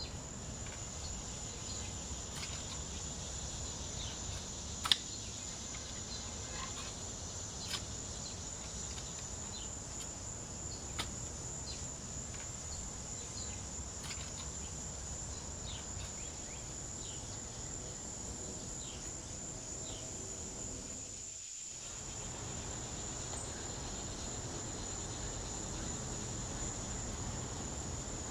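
Crickets trilling in a continuous high-pitched drone over a low, even background rumble, with a few faint sharp clicks in the first half.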